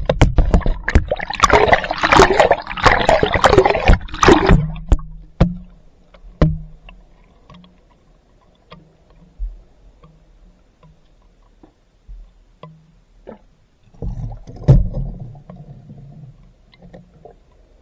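Water splashing and sloshing with sharp knocks for about the first four seconds, then mostly quiet with scattered clicks and a faint low hum, and a second short burst of splashing and knocks about two-thirds of the way in.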